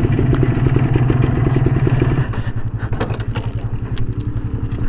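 Motorcycle engine running with a rapid even pulse as the bike rides along. About two seconds in, the throttle is eased off: the engine note drops and gets quieter as the bike slows.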